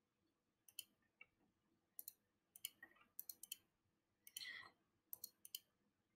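Computer mouse buttons clicking faintly, a dozen or so sharp clicks, often in quick pairs or runs, with a short soft rushing noise about four and a half seconds in.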